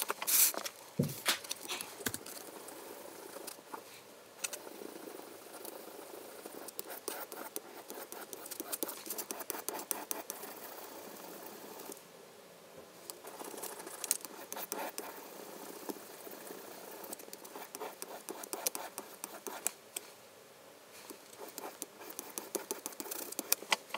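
The Little Shaver's pencil-sharpener blade rubbed back and forth on a wet Belgian Blue whetstone, played sped up: a fast run of scratchy, gritty strokes with short pauses about halfway and again near the end. A few clicks near the start as the blade is taken out of the sharpener.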